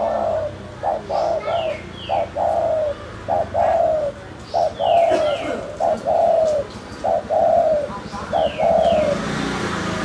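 Spotted dove (tekukur) cooing repeatedly: about four phrases of several short, falling coos each, one every two to three seconds. Short pairs of higher, falling chirps sound a few times in between.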